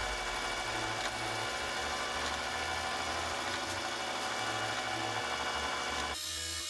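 Chinese mini metal lathe running while a high-speed steel fillet-shaped tool cuts a rounded edge on a spinning aluminum part: a steady motor and gear whine with a layer of cutting noise. It cuts off abruptly about six seconds in.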